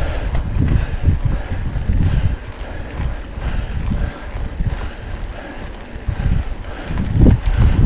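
Wind buffeting the microphone of a bike-mounted action camera during a mountain bike ride, a gusty low rumble that drops off in the middle and picks up again near the end.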